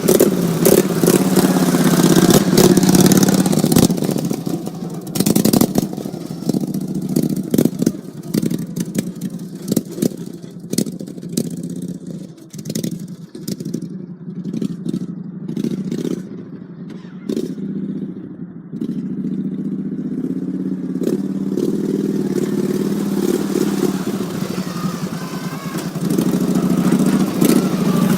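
Small engine of an off-road mower-type vehicle running under load with rattling and clatter over rough ground. The engine is loudest at the start, eases off partway through, then revs up again near the end.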